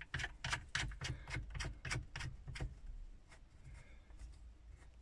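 Plastic phone cradle being turned and worked by hand on its dashboard mount, giving a quick run of plastic clicks, about three a second. The clicks die away after about three seconds, with a few fainter ones after.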